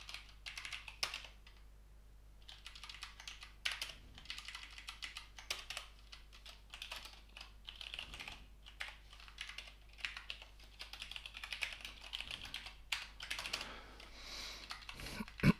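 Typing on a computer keyboard: quick bursts of key clicks with short pauses between them. It ends with a short vocal sound that falls in pitch.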